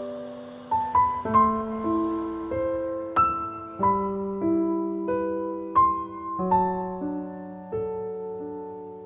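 Background piano music, a slow melody of single notes and chords, each struck and left to ring.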